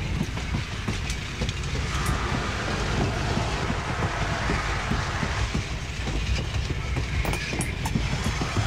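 A train rolling along the track: a steady low rumble with many small irregular clicks.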